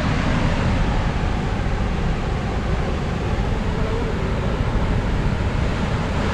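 Steady rush of rough sea surf, with wind buffeting the microphone in a low, ragged rumble.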